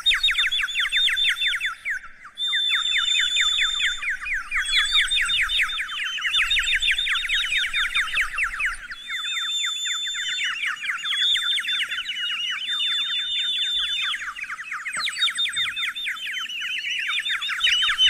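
Falcon giving a long, rapid series of shrill, downward-slurred calls, several a second, with a short break about two seconds in.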